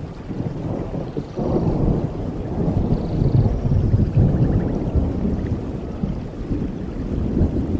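Low rumbling nature-sound backdrop, a dense noisy roar that swells up about a second and a half in, is strongest around the middle and eases off toward the end. A few faint short high whistles come and go above it.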